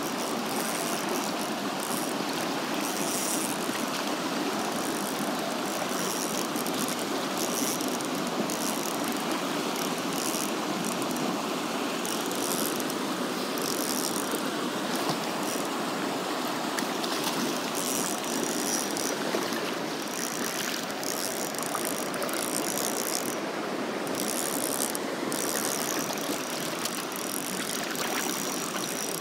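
Creek water rushing steadily over shallow riffles.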